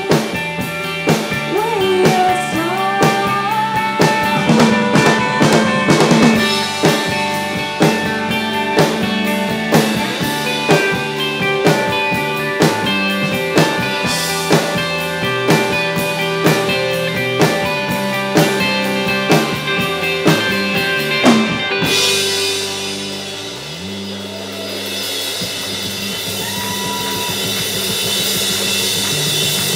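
Indie rock band playing on drum kit and guitars, with a female voice singing over the full band in the first part. About two-thirds of the way through, the full band cuts off into a quieter passage with a brief rising swell, then fast, steady drumming builds.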